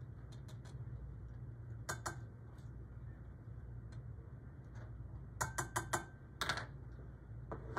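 Metal measuring spoon clicking and tapping against a tin of cocoa and a saucepan while cocoa powder is scooped out: a pair of light clicks about two seconds in, a quick run of four a little past five seconds, then a short scrape, over a low steady hum.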